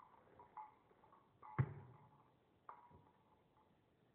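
A pit bull playing with a cat toy: a few faint knocks and bumps, the loudest a single low thump about a second and a half in, and two more close together near the end. Brief thin ringing tones follow some of the knocks.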